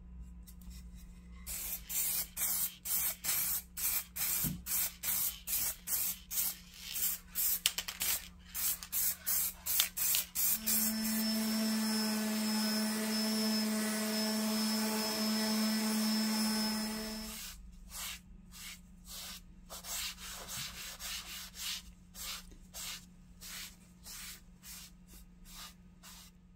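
An electric random-orbit sander runs with a steady hum for about seven seconds on a stained wooden board. Before it comes a run of quick, evenly spaced strokes, about two a second. After it come softer rubbing strokes of a cloth wiping finish onto the wood.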